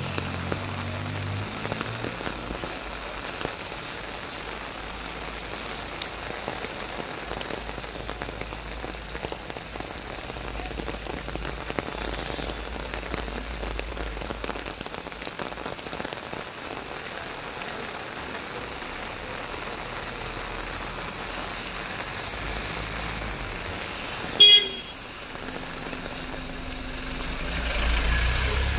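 Heavy rain pouring onto a paved street, a steady hiss of water. About 24 seconds in, a vehicle horn gives one short, loud honk, and near the end a vehicle passes close by with a low rumble over the rain.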